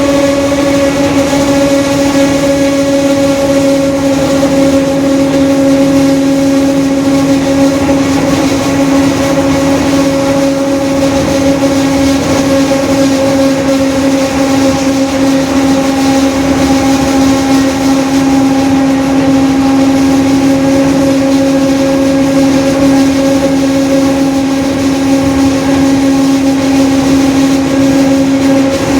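Mercedes-Benz OF-1721 BlueTec 5 bus driving at a steady speed, its differential growling with a strong, steady whine over the engine and road noise.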